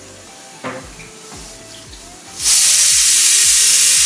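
Stovetop pressure cooker whistling: a sudden loud hiss of steam venting for under two seconds, starting about two and a half seconds in, as the cooker, up to pressure, lets off one of the whistles counted to time the cooking. Quiet background music with a steady beat runs underneath.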